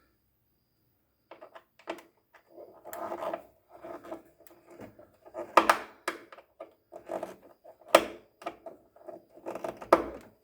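Hands working washing-machine drain parts: irregular scraping and rubbing, with three sharp knocks, the last near the end.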